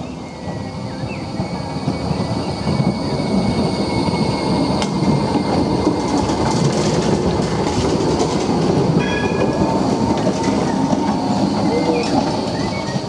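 Articulated low-floor tram running past at close range on street-track rails. Its rumble builds over the first few seconds, holds through the middle, and drops away near the end.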